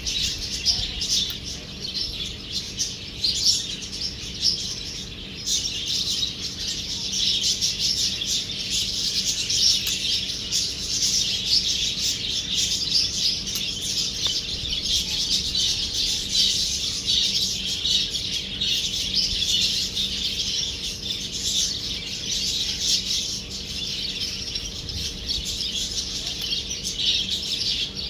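Birds chirping without pause: many short, high calls crowd over one another.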